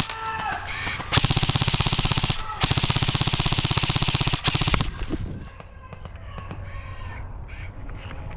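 Airsoft guns firing on full auto in long, rapid bursts, one after another, which stop a little over halfway through.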